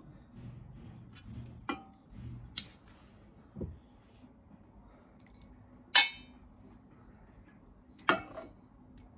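A metal ladle clinking against an enamel pot and a ceramic bowl as soft tofu pudding is scooped and served: four sharp clinks, the loudest about six seconds in.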